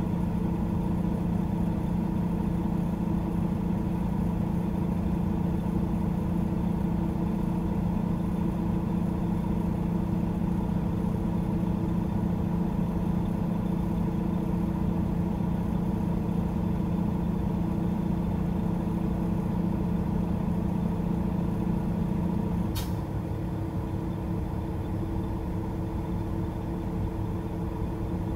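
Semi truck's diesel engine running steadily, heard from inside the cab as a low drone. About 23 seconds in there is a sharp click, and the engine's deepest tone drops away as it settles quieter.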